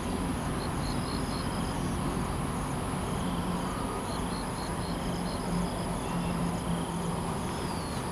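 Steady outdoor ambience of insects droning, with groups of short, repeated high chirps and a faint low hum coming and going underneath.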